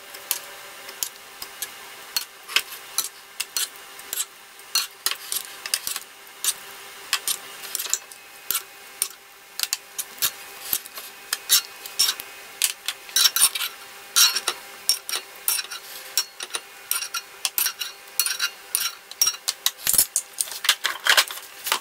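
A metal spoon scraping and tapping in a non-stick frying pan as cooked chicken livers and carrots are scooped out and dropped into a plastic food-processor bowl. It gives many irregular clicks and scrapes over a faint steady hum.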